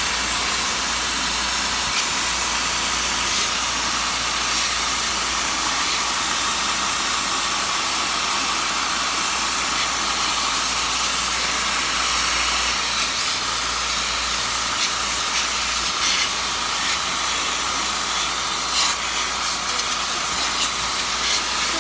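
High-pressure water spray rinsing detergent out of a household air conditioner's blower outlet and its stopped fan: a steady hiss of spray over a low hum, with a few faint clicks near the end.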